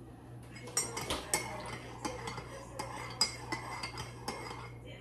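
Cutlery clinking against plates and dishes: a string of irregular light clicks and ringing clinks starting about a second in.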